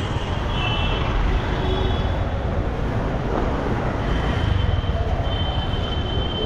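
Steady low rumble of road traffic or a moving vehicle, with a thin high whine that comes and goes.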